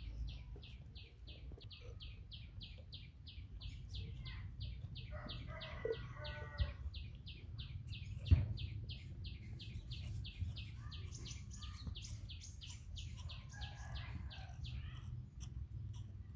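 Steady high-pitched chirping, about four chirps a second, with a single sharp knock about halfway through.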